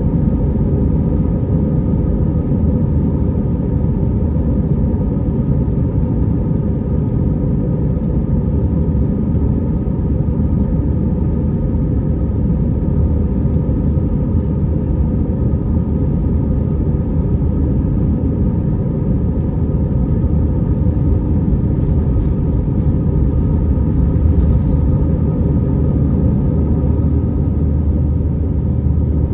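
Airbus A320 cabin noise from a window seat: a steady, loud low rumble of the engines and airflow, with a faint constant hum over it.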